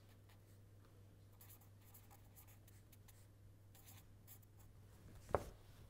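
Felt-tip marker writing on paper: faint scratchy pen strokes, short and irregular, over a low steady electrical hum. One brief, sharper sound stands out about five seconds in.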